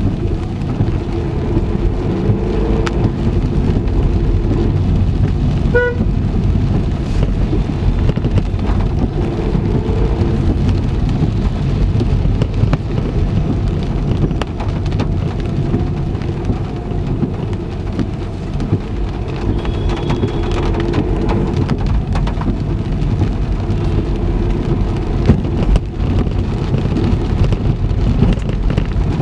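Heavy rain pelting a car's roof and windscreen, heard from inside the moving car as a loud, steady patter over a deep rumble. A short pitched beep sounds once about six seconds in.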